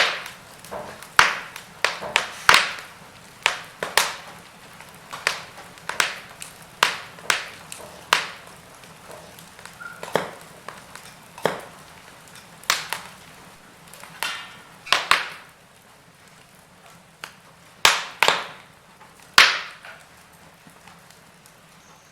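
Logs burning in a fireplace, crackling with sharp, irregular pops over a faint hiss. The pops come about one or two a second at first and thin out to a few isolated snaps in the last several seconds.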